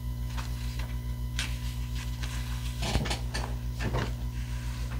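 Soft rustling and clicking from things being handled, with the busiest and loudest stretch around three to four seconds in, over a steady low electrical hum.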